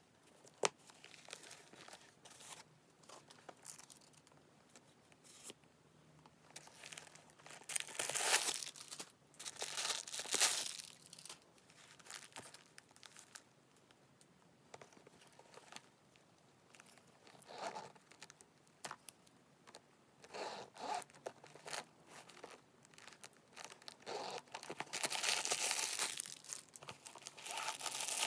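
Packing paper crinkling and rustling in irregular bursts as a new handbag is unwrapped and the tissue-paper stuffing inside it is handled. The longest, loudest stretch of crinkling comes near the end, and there is one sharp click near the start.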